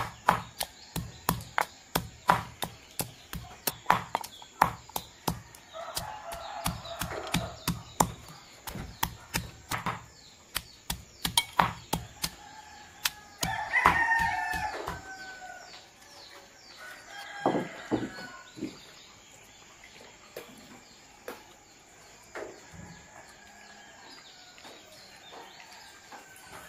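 Stone pestle pounding spice paste in a stone mortar, steady rhythmic knocks two or three a second for about the first half. A rooster crows loudly about halfway through, with a shorter call a few seconds later, then only scattered faint ticks and bird chirps.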